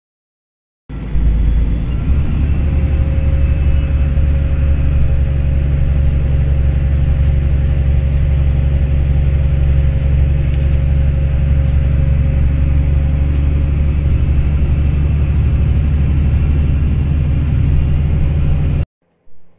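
Steady loud low rumble of engine and road noise inside a moving city bus, with a faint steady whine over it. It starts abruptly about a second in and cuts off near the end.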